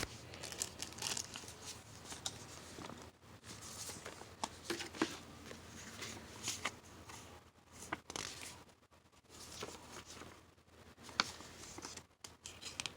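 Packaging rustling and crinkling in short, irregular bursts with occasional clicks, as a boxed 4-inch marine bilge blower fan is unpacked by hand.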